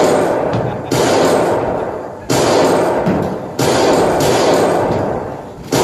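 Loud cinematic impact sound effects in the dance soundtrack, played over speakers in a hall: four sudden blasts about one to two seconds apart, each fading away over about a second.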